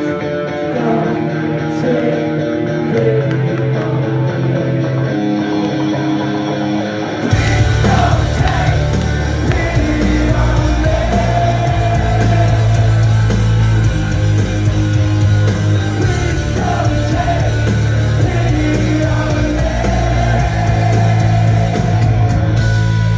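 A rock band playing live, heard from the crowd. A guitar part plays first, then about seven seconds in the full band comes in with heavy bass, drums and a sung vocal.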